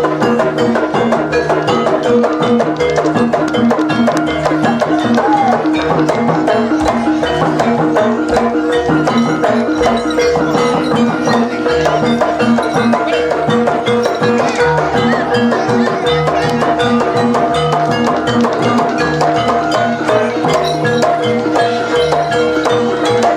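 Javanese jaranan dance accompaniment: drums and tuned mallet percussion playing a dense, steady, repeating rhythm over sustained pitched tones.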